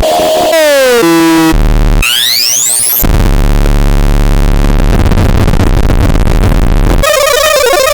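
Loud, heavily processed effects edit of a Sterling Model 30 Siren-Lite fire truck siren: short falling tones, a quick rising sweep about two seconds in, then several seconds of harsh noise and a warbling tone near the end.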